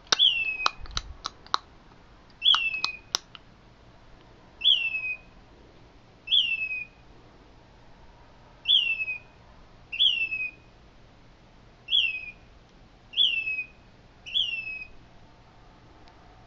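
A bird calling at night: a loud, clear whistle that slides downward, repeated about every one to two seconds. In the first few seconds a quick run of short, sharp clicking notes comes in between the whistles.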